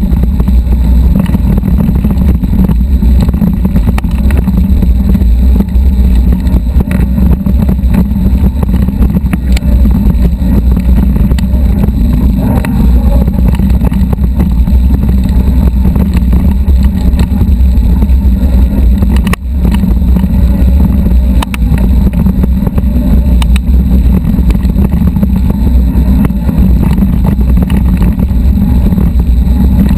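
Steady loud wind and riding rumble on an action camera's microphone as a mountain bike rolls over a rocky dirt trail. Faint clicks and rattles from the bike and gravel run through it.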